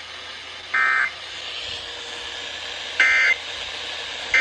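Emergency Alert System end-of-message (EOM) data bursts from FM radio broadcasts: three short, raspy two-tone digital bursts, with a steady hiss between them. They signal the close of the required monthly test.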